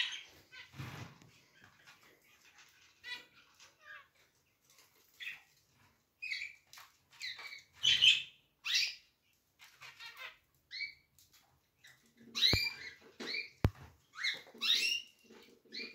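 Caged canary chirping in short, broken phrases of bright notes, with gaps between them rather than a continuous song. Two sharp clicks come about three-quarters of the way through.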